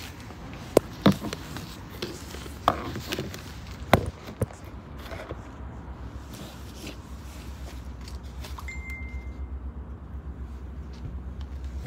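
A handheld phone being moved and set down: several sharp knocks and clatter in the first few seconds. Then a low steady hum.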